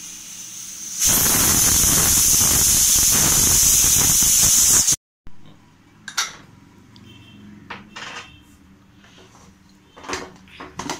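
Steam hissing loudly and steadily from the weight vent of an aluminium pressure cooker for about four seconds, cutting off suddenly: pressure venting once the mutton has cooked under pressure. Then a few light metallic clicks and knocks as the whistle weight is lifted off the vent.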